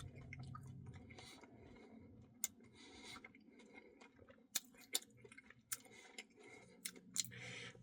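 Close, quiet mouth sounds of someone eating a Blizzard ice cream: soft chewing with a dozen or so scattered sharp clicks.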